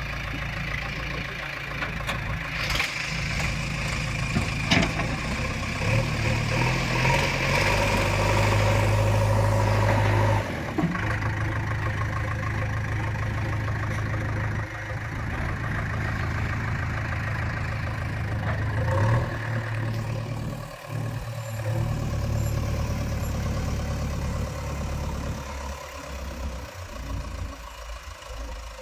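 JCB 3DX backhoe loader's diesel engine working, revving up about six seconds in and dropping back sharply near ten seconds. It rises briefly again around nineteen seconds, then eases toward idle near the end. A sharp knock sounds about five seconds in.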